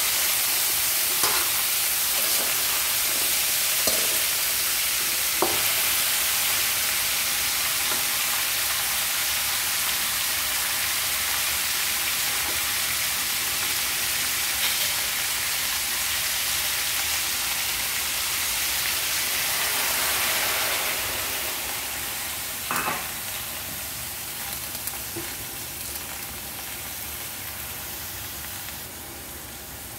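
Yardlong beans and ground pork sizzling as they are stir-fried in a metal wok, with a spatula clicking against the pan a few times in the first several seconds. There is one more knock about two-thirds of the way through, and the sizzle grows quieter over the last third.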